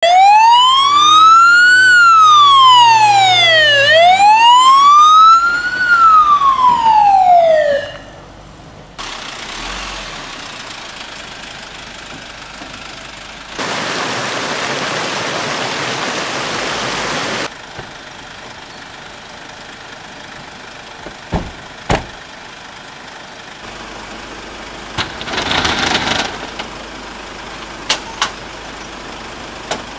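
Fire engine siren wailing, rising and falling twice in slow sweeps before stopping about eight seconds in. A quieter steady noise follows, with a few short sharp knocks near the end.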